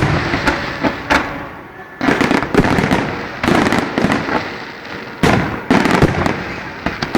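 Aerial fireworks shells bursting in quick succession, each sharp bang fading out in a rumble before the next.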